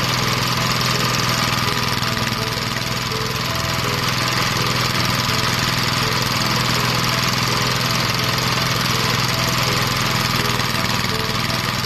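Rice thresher running steadily: an unchanging engine drone under a constant mechanical rush.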